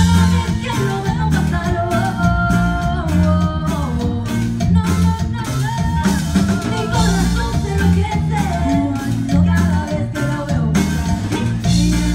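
Live band playing a cumbia: accordion, bass guitar, acoustic guitar and drum kit over a steady, driving beat.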